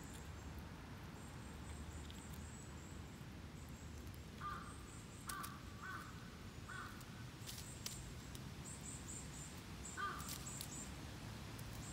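Outdoor birdsong: a run of high, thin chirps repeating throughout, with a harsher call sounding five times between about four and ten seconds in. There are a few faint light ticks alongside.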